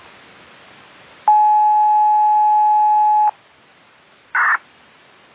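Radio receiver on an analog disaster-prevention broadcast channel: hiss, then a steady single-pitch beep for about two seconds, then hiss again and a short burst of static near the end.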